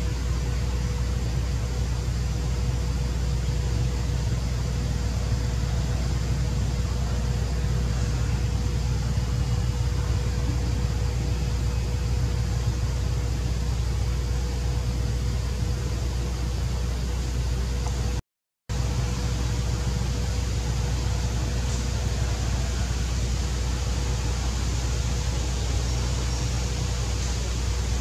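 Steady low background rumble and hiss with a faint steady hum running through it, no animal calls standing out. The sound cuts out completely for a moment about two-thirds of the way through.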